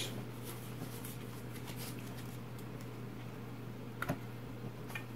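Printed game cards being handled and laid on a tabletop: faint light ticks and rustles, with one sharper tap about four seconds in, over a steady low hum.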